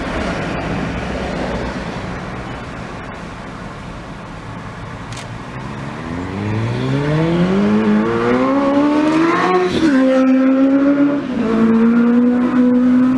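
A motor vehicle engine over a haze of road noise. It revs up with a steadily rising pitch for several seconds, drops back about ten seconds in, as at a gear change, then runs at a steady pitch.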